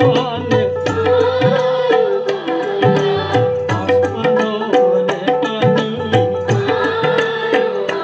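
Assamese jikir sung by a group to harmonium, with hand drums beating a steady, busy rhythm under the voices.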